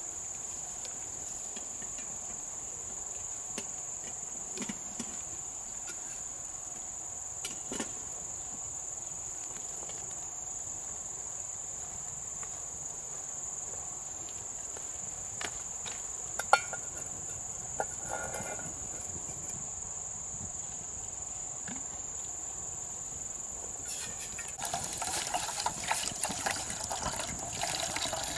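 Insects chirring in a steady, high-pitched drone, with scattered light clicks and one sharp knock a little past halfway. About four seconds before the end a louder, crackling noise starts up.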